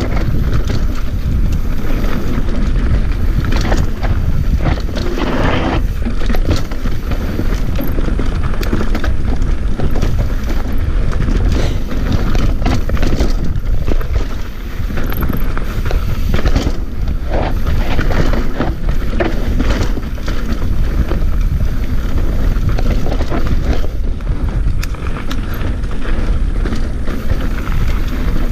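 Mountain bike descending a rough dirt trail at speed: constant clattering and knocking of the bike and tyres over roots, rocks and loose ground, under a heavy steady rumble of wind on the microphone.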